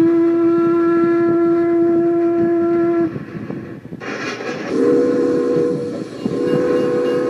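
Toy train sounding one long single-note whistle blast of about three seconds, then two shorter blasts of a lower several-note chord horn, over the clatter of the train running on its track.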